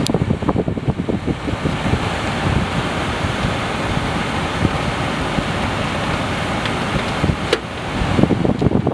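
Loud steady rushing noise with low rumbling buffets near the start and end. A single sharp click comes about seven and a half seconds in, as the centre console's sliding lid is pushed open.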